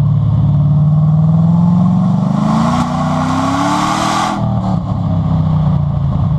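Chevrolet SS's 6.2-litre V8 exhaust idling, then revved up, its pitch rising for about three seconds, and snapping back to idle when the throttle is released about four seconds in.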